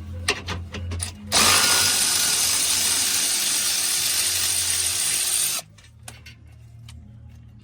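Power drill running for about four seconds, then cutting off, as it backs out a bolt holding the plastic under-tray beneath the car; a few clicks come before it.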